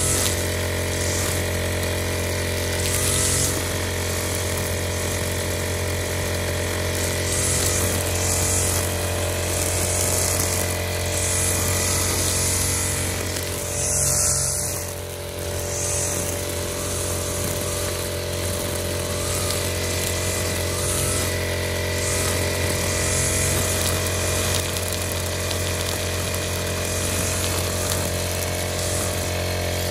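Backpack two-stroke brush cutter running steadily at cutting speed, its head swishing through tall grass in repeated sweeps. The sound dips briefly about halfway through.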